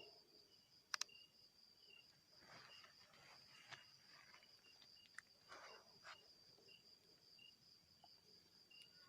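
Faint insects chirring in a steady high trill, with a shorter chirp repeating about once a second. A quick double click about a second in is the loudest sound, and soft rustling comes twice.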